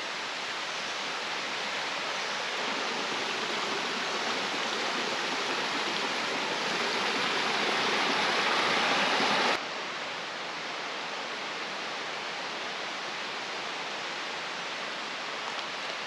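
Steady rushing of a forest stream, swelling slightly, then dropping suddenly to a quieter level about halfway through.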